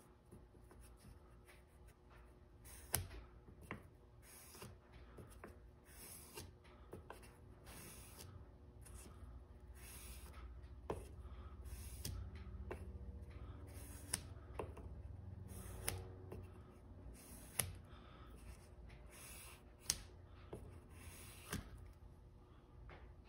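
Faint, short rasping strokes of the flat back of a steel single-bevel broadhead rubbed on fine 2000-grit abrasive paper laid on glass, about one stroke a second at an uneven pace, knocking off the burr on the back side.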